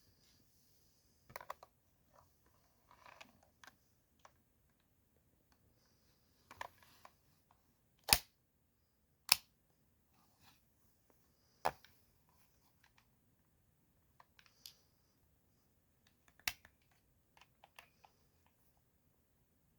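Sharp clicks from handling a Crosman semi-automatic airsoft gun, with soft rustling between them. The loudest are two single snaps about a second apart, near the middle, and two more follow a few seconds apart.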